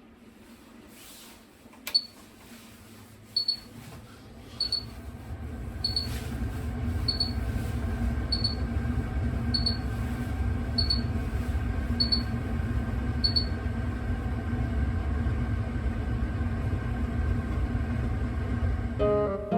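A click, then a kitchen range hood beeping its warning: a short high beep about every second and a bit, ten times, while its exhaust fan starts up about four seconds in and runs with a steady low hum. The title says the warning sound ringing through the kitchen comes from the range hood.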